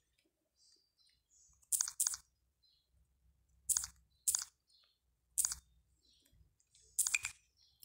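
Fingertip taps on a Samsung Galaxy A01 phone's touchscreen, picked up by the phone's own microphone: about seven short, quiet clicks in loose pairs.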